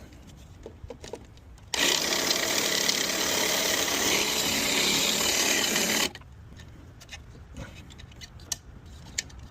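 Power drill running in one steady burst of about four seconds, enlarging the cable hole in the back of the fairing so a speaker connector will fit through; it starts about two seconds in and stops suddenly.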